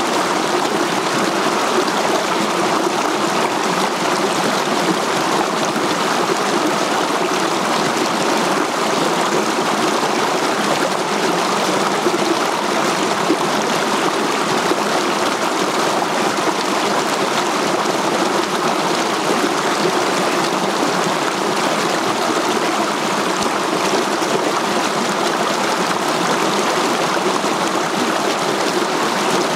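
Shallow mountain stream rushing and splashing in small cascades over boulders: a steady, unbroken sound of water.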